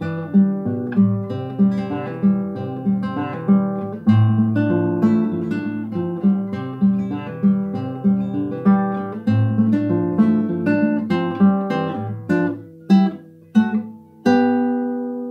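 Acoustic guitar music: picked notes at about two a second, slowing near the end to a few separate notes and a final chord left to ring out.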